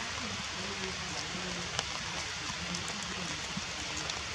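Steady hiss of rain falling, with faint low voices in the background and a single sharp tick just under two seconds in.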